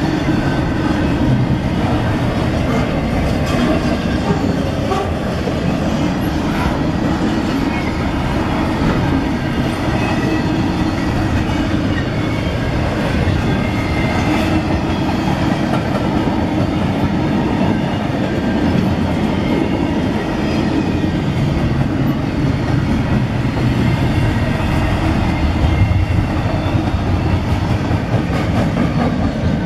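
CSX double-stack intermodal freight train rolling past at speed: steady rumble of steel wheels and well cars on the rails, with light knocks from the wheels over the track.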